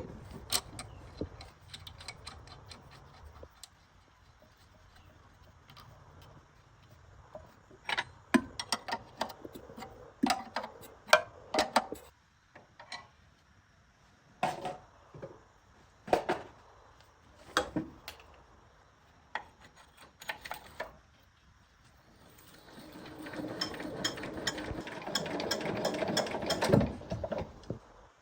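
Hand tools working on the metal parts of a generator: scattered sharp clicks and knocks, then several seconds of dense rattling and scraping with rapid clicks near the end.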